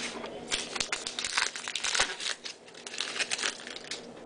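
Crinkling of a trading-card pack's wrapper being handled and torn open: a run of irregular crackles with a short lull about two and a half seconds in.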